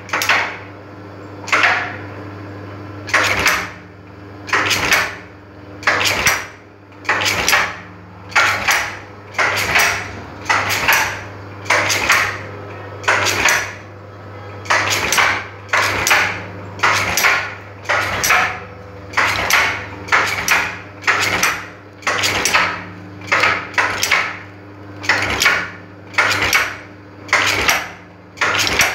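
Brush-making machine inserting tufts of bristles into a wooden brush block. Its motor hums steadily under a regular mechanical clatter, one sharp stroke about every three-quarters of a second.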